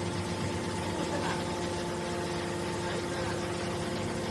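Scrap metal push-out baler's hydraulic power unit running with a steady, even hum.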